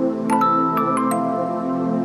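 Soft background music: gentle, bell-like struck notes ringing out over a steady sustained backing.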